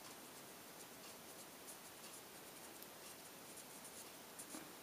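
Faint, soft scratching of a paper blending stump wet with mineral spirits, rubbed in short strokes over colored pencil on card, above a low hiss.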